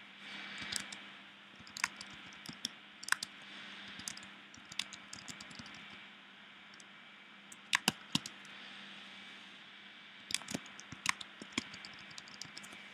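Computer keyboard keys tapped in scattered, irregular clicks as a short line of text is typed, with pauses between bursts.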